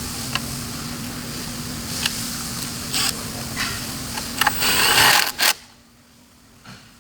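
A small motor running with a steady hum and a few light clicks, swelling into a louder rushing noise near the end, then stopping abruptly about five and a half seconds in.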